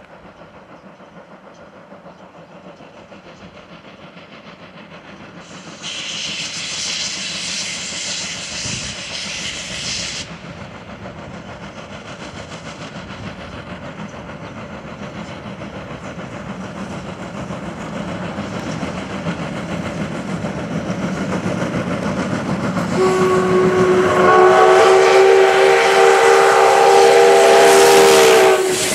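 JNR Class D51 steam locomotive No. 200 approaching under power, its exhaust beats growing steadily louder. Near the end it sounds a long steam whistle blast of about five seconds that starts on one note, fills out into several, and cuts off sharply. About six seconds in there is a loud hiss lasting about four seconds.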